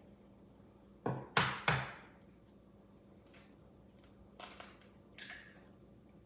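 An egg being cracked: three sharp taps close together about a second in, then a few quieter clicks.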